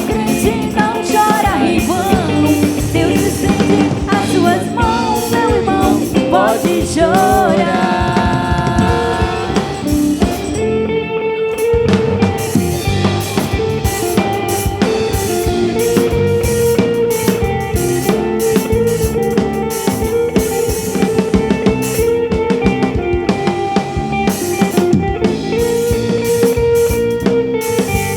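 Live gospel band playing an instrumental passage, the drum kit keeping a steady beat with snare and bass drum. A lead melody line with vibrato rises over the band for about the first ten seconds, then the full band plays on.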